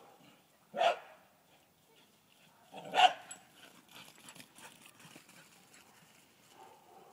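Dog barking twice during play, two short loud barks about two seconds apart.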